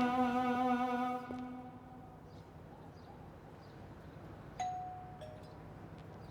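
Incidental string music fading out, then a two-note "ding-dong" doorbell chime about four and a half seconds in, a higher note followed by a lower one.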